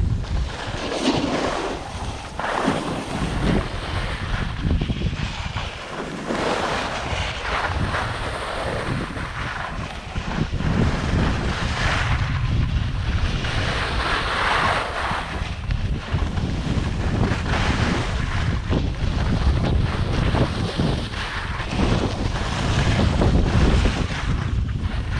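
Wind buffeting the microphone during a downhill ski run, with a steady low rumble. Swishing rushes swell every few seconds as the skis turn on the snow.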